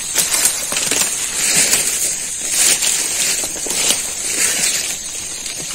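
Steady high-pitched drone of night insects, with repeated close crackling, rustling and clicking handling sounds, the loudest about a third and two thirds of the way in.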